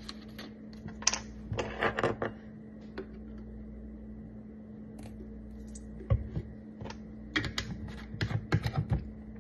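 Scattered small clicks and taps from a bottle of vanilla extract and a metal measuring spoon being handled, as the cap is opened and extract is poured into the spoon over a steel pot. The clicks come in two flurries, one in the first couple of seconds and another near the end, over a steady low hum.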